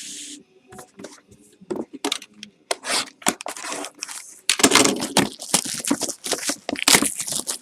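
A box cutter slitting open a sealed trading-card hobby box, and its wrapping being torn and crinkled: a run of scraping and tearing noises, sparse at first and growing denser and louder about halfway through.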